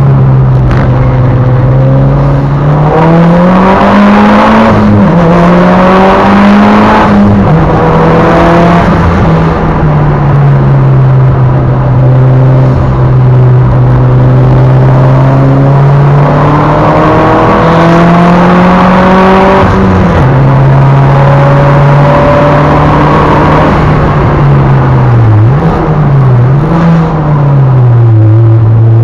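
Mitsubishi Lancer Evolution VIII's turbocharged 2.0-litre four-cylinder engine pulling hard on a track lap, heard inside the cabin. The engine note holds steady for long stretches and rises and falls several times as the driver accelerates and lifts, with a few sharp dips near the end.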